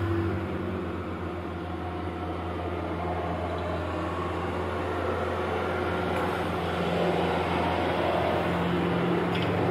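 Steady mechanical hum of a running motor at an even, unchanging pitch.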